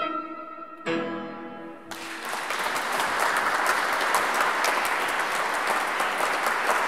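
A flute and a Yamaha digital piano play the closing notes of a piece: a held flute note, then a final chord about a second in. From about two seconds in, audience applause starts and keeps going steadily.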